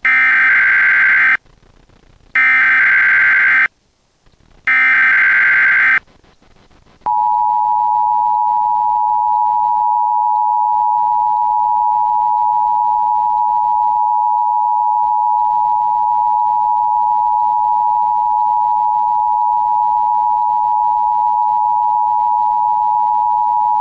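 Emergency Alert System test signal: three bursts of digital SAME header data tones, each about a second and a half long with short gaps between. After a pause of about a second comes the steady two-tone EAS attention signal, two tones just under 1 kHz sounding together (853 and 960 Hz).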